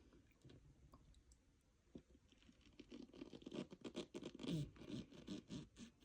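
Powder-covered chalk being crunched, making a quick run of squeaky, crackly strokes. It starts sparse, thickens about two and a half seconds in, and is loudest near the end.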